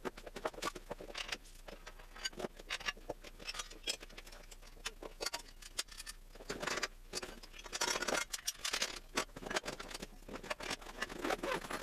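Metal parts of a motorcycle tire changer clinking and knocking irregularly as they are handled and packed, with the fabric carry bag rustling at times.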